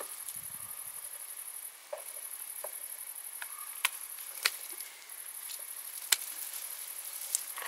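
Crickets trilling steadily in the background, with several sharp snips of hand pruning shears cutting plant stems, the loudest in the second half.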